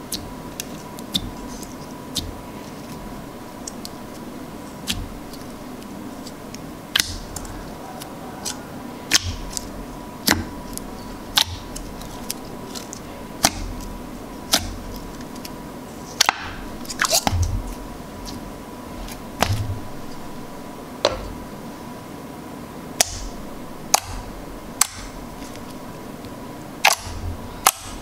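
Fingers poking and pressing thick, glossy slime in a plastic tub, giving sharp clicking pops from air pockets in the slime. The pops come irregularly, about one every second or two, with a quick run of crackles about two-thirds of the way through.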